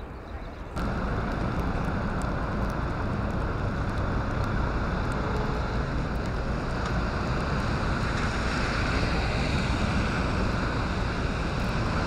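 Steady city street noise of passing traffic, with wind buffeting the microphone. It starts abruptly under a second in.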